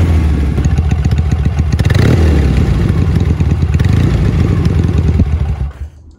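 1962 Norton 650SS parallel-twin engine running with a deep, throaty exhaust note through the cigar-shaped Manxman silencers. It is revved briefly about two seconds in and then switched off near the end, the sound dying away.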